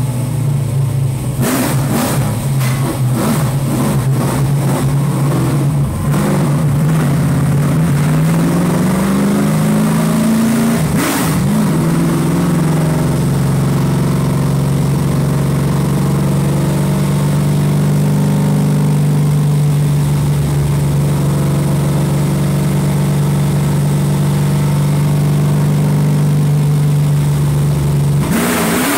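GM LQ9 small-block V8 with FAST EZ-EFI fuel injection running on a chassis dyno. Sharp crackles and pops come in the first few seconds. Then the pitch rises for about three seconds, holds steady for a long stretch and changes abruptly near the end.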